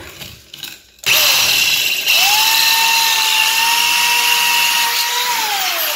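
Power drill with a long bit boring a hole through the wall. It starts suddenly about a second in, its motor whine rises and holds steady, then falls away near the end as the drill slows.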